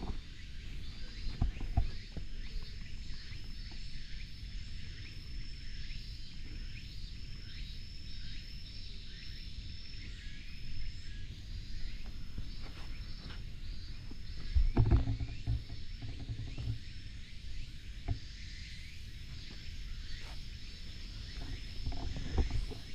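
Footsteps on an asphalt road with a low rumble of wind and handling on the microphone, over a steady high-pitched chorus in the background. A louder bump about two-thirds of the way through.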